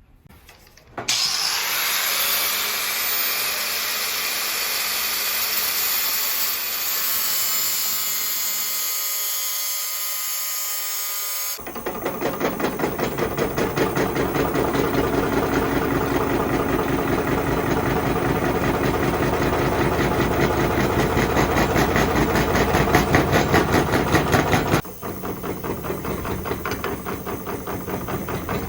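Power-tool work in sections: a motor spins up to a high whine about a second in and runs steadily, then gives way to a rougher, rapidly pulsing machining noise, which drops to a quieter level near the end.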